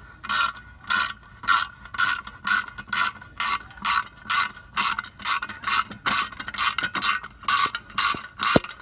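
Hand ratchet wrench backing out a bolt on a small engine: an even run of ratcheting strokes, a little over two a second.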